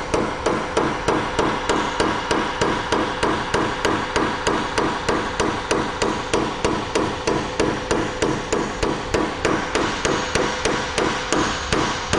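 A hammer tapping steadily, about three blows a second, driving a new steel joint pin as an interference fit into a side-by-side shotgun's action; each blow rings on the metal.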